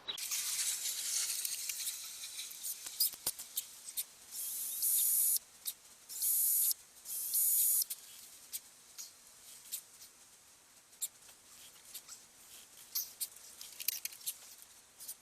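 Drilling a hole through a frog ornament: scratchy hiss of the bit cutting, with three louder steady bursts of about a second each in the middle, amid light clicks and scrapes of the workpiece being handled.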